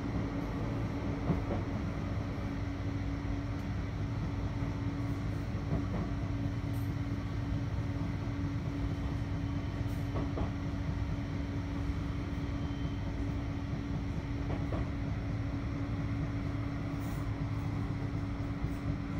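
Cabin noise of a Bombardier Flexity 2 tram running between stops: a steady rumble of the wheels on the rails with a constant hum, and a few faint knocks.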